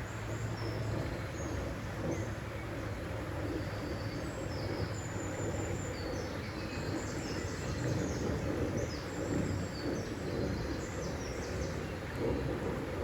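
Birds chirping in short, quick calls over a steady rushing of water.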